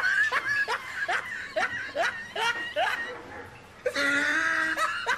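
Exaggerated mouth noises from a man eating fufu by hand: a quick run of short rising squeaky smacks, about three a second, then a long hummed 'mmm' about four seconds in.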